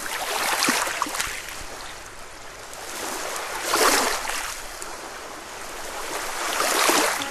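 Waves washing onto a shore, the rush of surf swelling and falling back three times, roughly three seconds apart.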